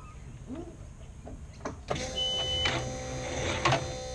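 A few clicks, then about two seconds in a small electric motor starts a steady whine and a short high-pitched beep sounds, as the ski race boat's electrics are switched on with its engine not yet running.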